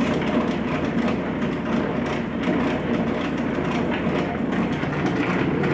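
A steady mechanical rumble with a fast, continuous clatter, like a machine running.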